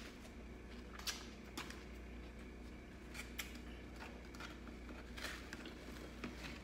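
Faint eating sounds: a fork clicking and scraping in a plastic takeout container of salad. Several short, sharp clicks come at uneven moments, over a low steady hum.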